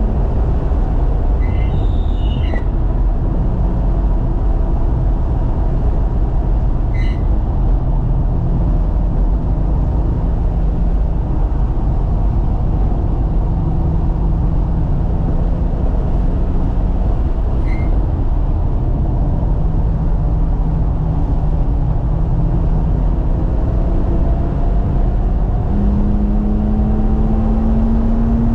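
Inside the cabin of a 2018 BMW M3 Competition (F80) at track speed: the 3.0-litre twin-turbo S55 inline-six is under load, its note stepping and climbing as it accelerates and changes gear through the six-speed manual. Heavy road and wind noise runs underneath.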